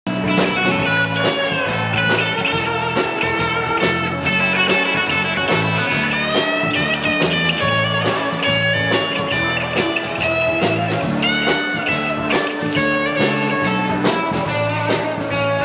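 Instrumental music: a guitar-led intro with a steady beat.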